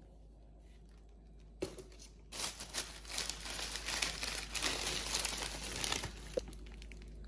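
Thin plastic shopping bag rustling and crinkling as groceries are lifted out of it, starting about two seconds in after a single click, then continuing in irregular crackles.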